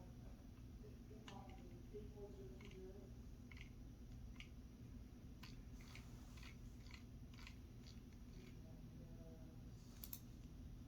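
A series of faint, short clicks, roughly one or two a second for several seconds, with a sharper click near the end, over a low steady hum.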